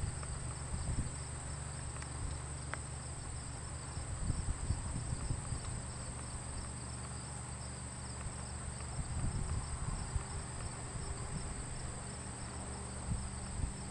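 Steady insect chirping, a constant pulsing high drone, over a faint low hum, with wind buffeting the microphone now and then.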